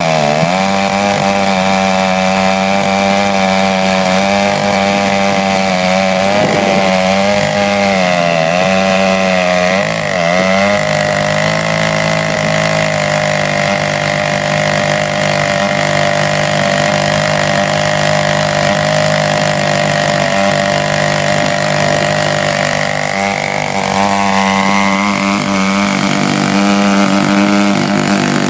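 Large Stihl two-stroke chainsaw running hard in a chainsaw mill, ripping a log lengthwise. Its pitch wavers at first, drops about ten seconds in as the saw loads up in the cut, holds lower, and climbs back about 24 seconds in.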